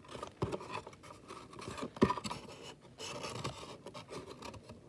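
Cardboard cereal box being handled and pressed into shape, with irregular scraping and rubbing of the cardboard and a couple of sharper clicks.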